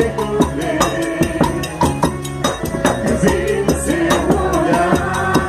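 Lively quadrilha dance music with a quick, even percussion beat of about four strokes a second under sustained melody notes and some singing.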